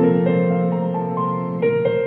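Slow piano music with held notes playing through LG 5.1 home theatre speakers under test.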